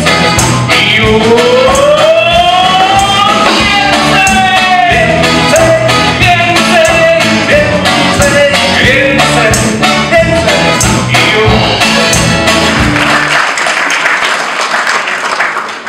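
Live song: a man singing with accordion and double bass, over a steady rhythm. The music stops about thirteen and a half seconds in and applause follows.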